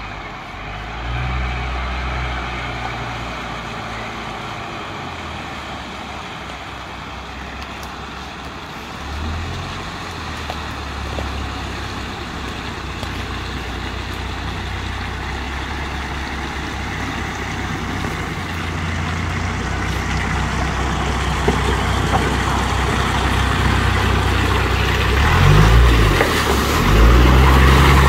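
Jeep Wrangler engine pulling at low revs as it drives through a shallow stream, water splashing around the wheels, growing louder as it approaches. Near the end the engine revs up hard twice.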